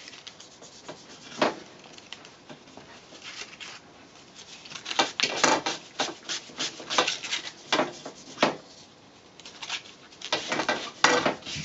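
Fine sandpaper rubbed by hand over a thin built-up layer of glue on a composite pole section, sanding off the high spots. Short strokes come in bursts with pauses between, busiest in the middle.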